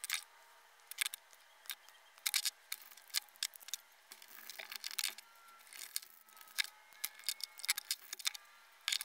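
Irregular small clicks and taps of stiff copper wires, a metal-strapped duplex outlet and a screwdriver being handled on a plywood bench while a side-wire outlet is wired. Near the end a screwdriver turns the outlet's terminal screw down on a wire.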